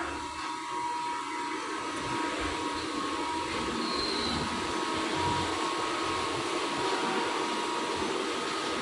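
Machining unit running, a steady mechanical hum with a few constant whining tones over a noisy rush, slightly louder after about a second.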